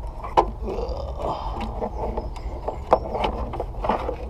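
Sharp clicks and knocks with rustling as a headlight unit and its HID wiring are handled, three distinct clicks standing out, over a low steady rumble.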